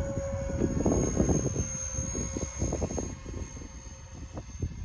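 An RC model jet's motor whines steadily in the air, the pitch dipping slightly about halfway through. Heavy wind buffeting on the microphone is louder than the jet.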